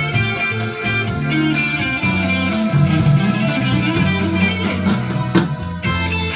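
Instrumental rock music: a lead electric guitar plays over a backing with low bass notes, with some notes gliding in pitch around the middle.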